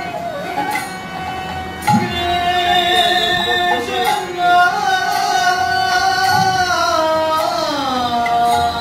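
Bengali devotional kirtan: a male lead voice and violin hold long notes that slide and bend, with a couple of deep strokes on the khol, the clay barrel drum.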